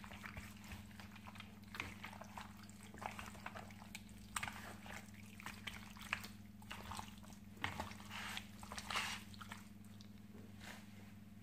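Raw chicken pieces being mixed by hand in a plastic bowl: faint, irregular wet squelches and slaps, a few louder ones in the second half. A steady low hum runs underneath.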